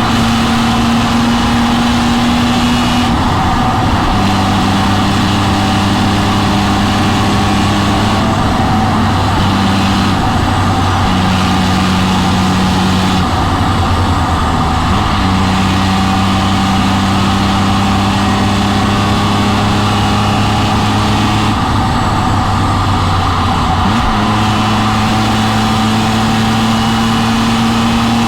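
BMW M3 E46's 3.2-litre straight-six running hard on track, heard onboard over steady wind and tyre noise. The engine note holds at fairly steady revs for several seconds at a time, then briefly drops and picks up again several times as the driver lifts and shifts.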